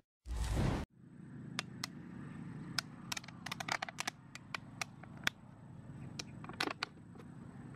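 A brief falling whoosh, then scissors cutting a clear plastic water bottle: a string of sharp, irregular snips and crackles of the thin plastic, over a faint steady high tone.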